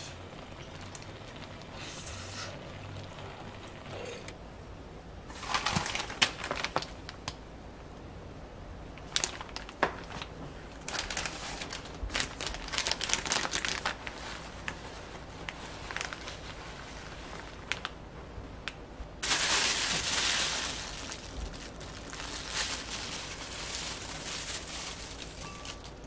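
Plastic bag and paper towel rustling and crinkling as they are handled, in several irregular bursts with small clicks and taps between.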